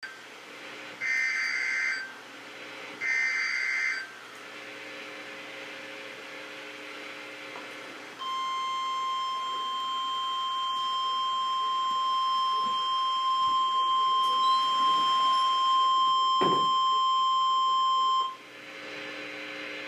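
NOAA Weather Radio emergency alert: two short bursts of warbling SAME digital header tones, then the long, steady, single-pitched warning alarm tone held for about ten seconds. The tone sequence marks the start of a severe thunderstorm warning broadcast.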